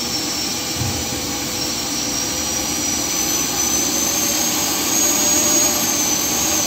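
Radio-controlled jet-dryer trailer's jet running: a steady rushing blast with a thin high whine that climbs a little past the halfway point.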